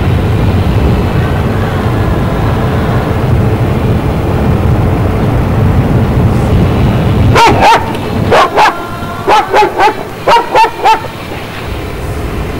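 A vehicle driving with a low, steady rumble, then a dog barks about ten times in three quick groups of two or three barks, starting a little past halfway.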